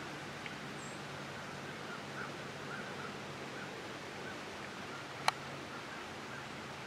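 Steady outdoor background hiss with a few faint short chirps, and a single sharp click a little after five seconds in.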